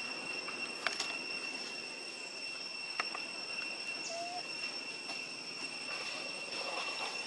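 Steady insect drone: a continuous high, even whine with a fainter higher tone above it. A few faint clicks and one short rising squeak about four seconds in.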